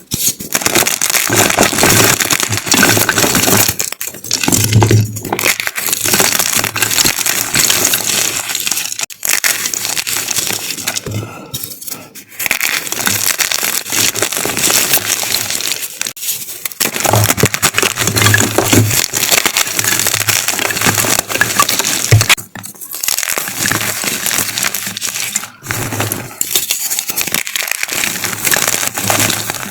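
Large pieces of chalk being crushed: continuous dense crunching and crackling, broken by a few short pauses.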